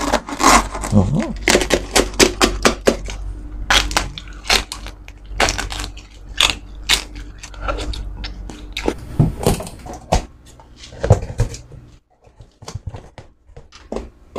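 Crisp skin of a whole roast suckling pig (lechon) crackling and crunching in a long string of sharp cracks: a knife cutting through the skin, then crunchy bites and chewing. The crackles thin out about twelve seconds in.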